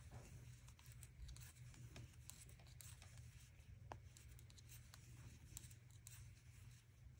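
Near silence with faint, scattered clicks and rubbing of metal knitting needles and yarn as stitches are knitted, over a low steady hum.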